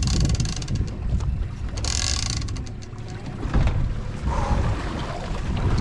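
Wind rumbling on the microphone over the sound of a sportfishing boat at sea, with scattered mechanical clicks and a couple of louder knocks about three and a half seconds in.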